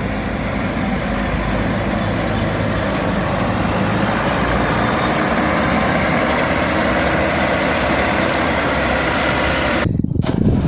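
Big combine harvester diesel engine running steadily. Near the end the sound cuts abruptly to a different engine recording.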